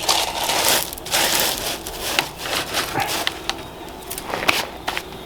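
Gravel crunching and scraping, with sharp clicks and knocks of PVC pipe, as a dry-fitted drain pipe is shifted and bedded in gravel to set its slope.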